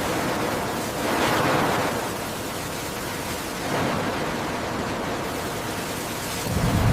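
Steady rushing noise that swells about a second in and again near four seconds, with a deep rumble coming in near the end.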